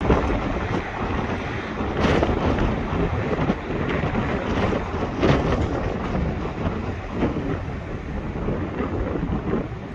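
Wind buffeting the microphone: a loud, uneven rumble that surges in gusts, strongest about two and five seconds in.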